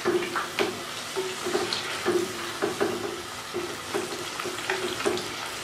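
Wooden spoon stirring and scraping saag gosht around a clay pot, about two strokes a second, over the sizzle of the curry frying in oil while the last of the saag's water cooks off.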